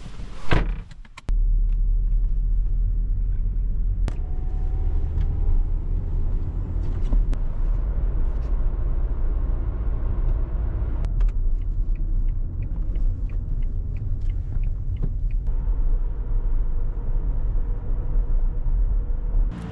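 A car door pulled shut with a thump about half a second in, then the steady low rumble of the car driving, heard from inside the cabin.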